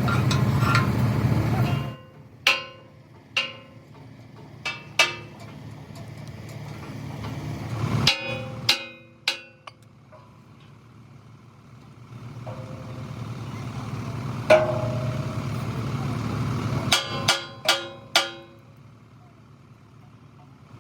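Sharp metal clanks on steel, each ringing briefly, coming singly and in quick clusters, over a low machine hum that swells and fades. A louder engine-like hum cuts off suddenly about two seconds in.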